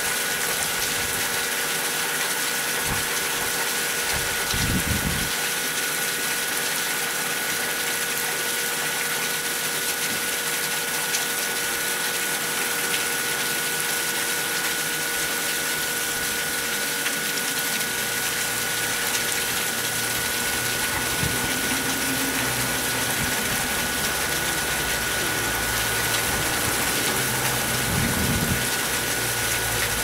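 Thin stream of water falling down a rock face and splashing, a steady hiss, with a faint steady whine underneath.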